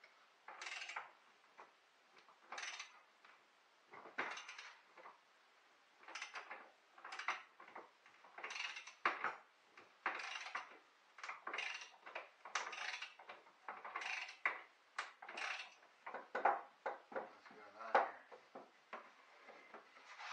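A hand tool working a piece of wood held in a bench vise: a series of short scraping strokes, roughly one a second, with brief pauses between them.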